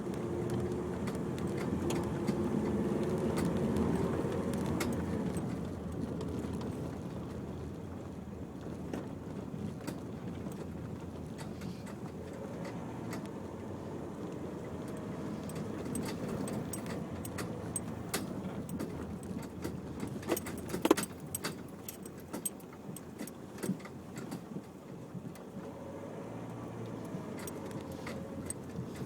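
Vehicle cabin noise on a rough, rutted unsurfaced track: engine and tyre rumble, louder over the first few seconds, with frequent small rattles and knocks from the car bouncing. One sharp, loud knock comes about two-thirds of the way through.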